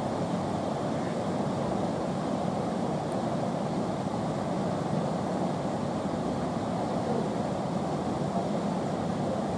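Churning white water of a river rapid rushing steadily.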